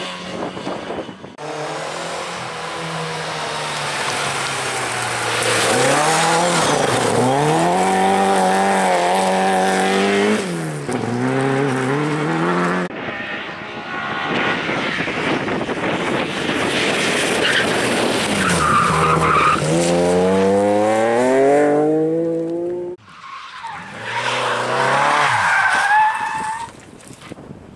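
Rally cars driven hard past one after another, their engines revving up and dropping back repeatedly through gear changes, with tyres skidding on loose gravel.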